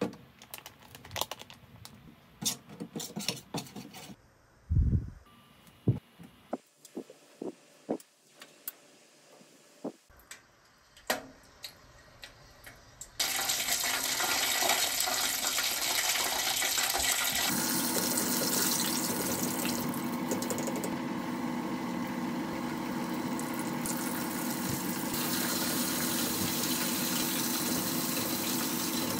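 Light clicks and taps of a spoon working flour on a metal tray. About 13 seconds in, chicken goes into hot oil and a loud, steady sizzle of deep-frying begins and carries on. A few seconds later a low steady hum joins it.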